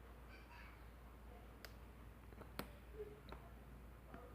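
A lock pick and tension tool working the pins of a small cabinet lock, giving a handful of faint, sharp clicks with the loudest a little past halfway.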